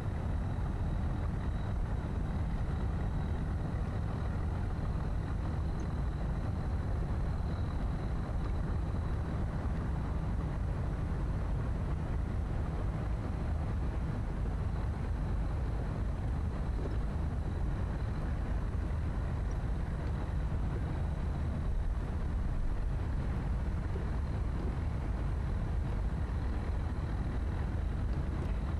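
Steady low rumble of night-time city and riverside ambience, even throughout, with a faint thin high tone held above it.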